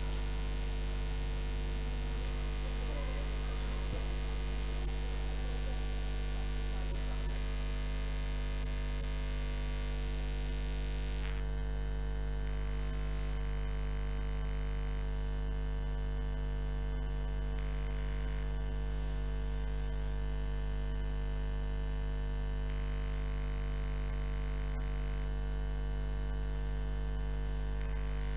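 Steady electrical mains hum with a buzz of overtones above it, unchanging throughout, as from a live sound or recording system left running.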